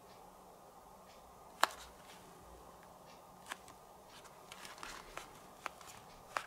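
Headphones being handled: about five sharp little clicks spread out, the first the loudest, with a brief soft rustle between them.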